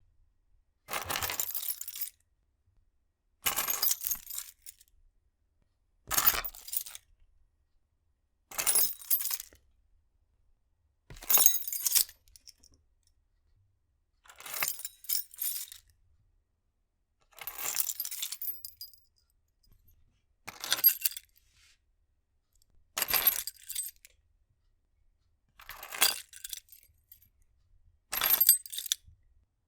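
A bunch of metal keys picked up off a table, jingling and clinking, eleven times over with short silent pauses between.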